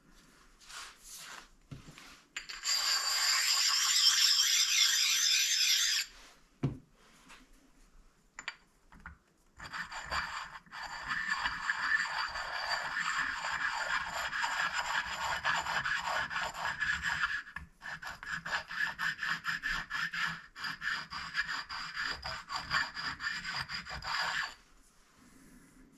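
A flat abrasive stone rubbed back and forth along the metal top edge of a milling-machine vise, stoning down high spots and a laid-over edge. It makes a harsh, high scraping: one spell of a few seconds early on, then a longer run of strokes from about ten seconds in until near the end, with a short pause partway through.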